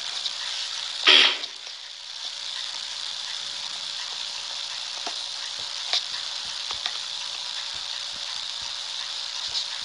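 Steady hiss from a phone's live-stream microphone, with a short rush of noise about a second in and a few faint clicks later on.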